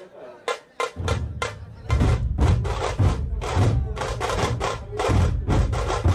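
Drumming: sharp strikes about four a second, joined about a second in by heavy bass drums that grow louder and fuller about two seconds in.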